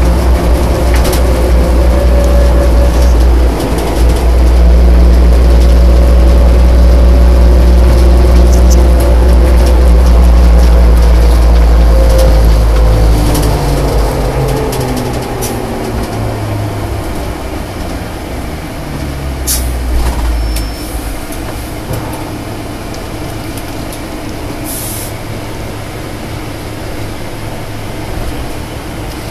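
Airport fire truck's heavy engine running loud, heard from inside the cab; about halfway through its pitch falls as it winds down, and it settles to a quieter steady run. A few sharp clicks stand out over it.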